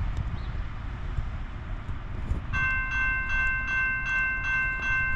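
Grade-crossing warning bell starting to ring about halfway through, a steady rapid ding with about three strokes a second, as the crossing activates for an approaching train. Wind rumbles on the microphone underneath.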